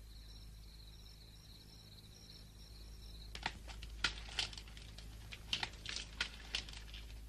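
Faint, high-pitched pulsing chirps, then from about three seconds in a run of irregular sharp crackling clicks.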